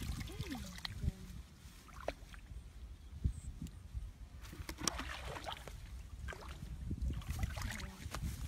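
Hands groping and sloshing in a shallow muddy pool while feeling for fish, with irregular splashes and knocks.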